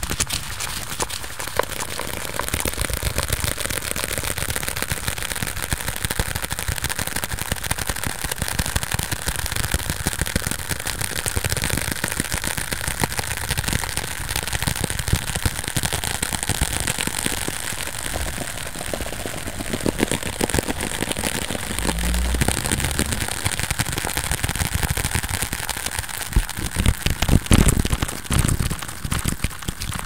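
Sped-up ASMR tapping and scratching of fingers and fingernails on a small deck of cards and a folded piece of card: a dense, fast crackle of clicks with no pause. A few heavier low thumps come near the end.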